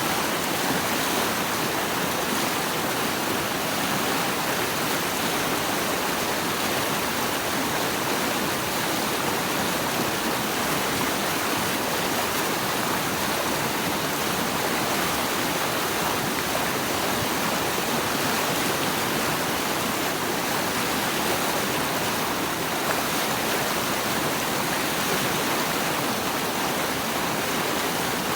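Flowing water rushing steadily, an even hiss that is more splash than rumble.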